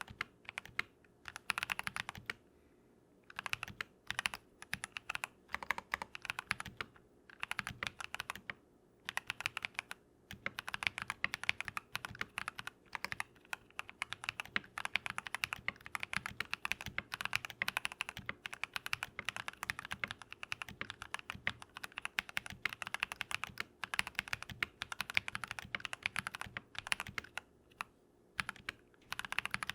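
Typing on a Keychron V1 mechanical keyboard with lubed Drop + Invyr Holy Panda tactile switches, fitted with foam, switch films and pads: steady runs of rounded keystrokes, with brief pauses now and then.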